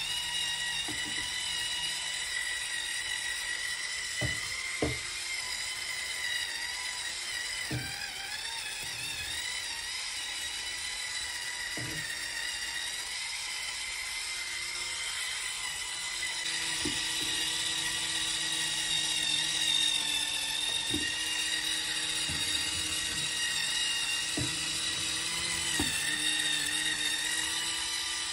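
Electric spin scrubber's motor whining steadily as its pointed bristle brush head spins against a bathroom sink and faucet, slightly louder in the second half. A few short knocks are scattered through it.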